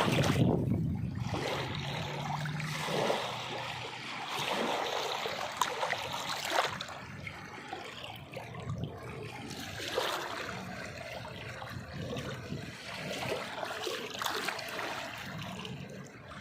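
Water splashing and sloshing in irregular bursts, with trickling and gurgling between them.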